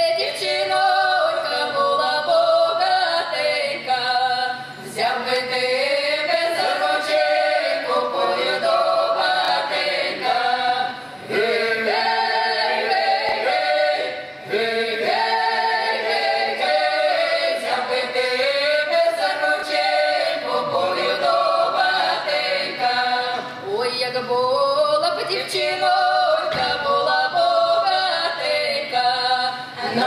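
Folk ensemble of women's voices with one man singing a Ukrainian village song a cappella, in several voice parts at once. The singing runs in long held phrases with brief pauses for breath between them.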